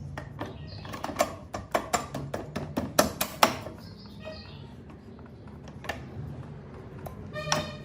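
Hand tools and motorcycle parts knocking and clicking during workshop work: a quick run of sharp taps about one to three and a half seconds in, scattered taps after, and a brief ringing note near the end.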